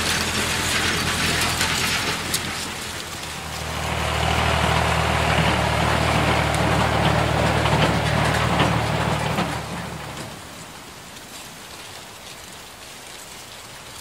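Tractor engine running steadily under a dense rattling clatter of the implement it pulls, then dying down about ten seconds in, leaving a fainter hiss.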